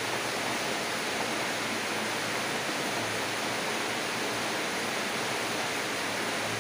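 Steady, even hiss of background noise with no changes or distinct events.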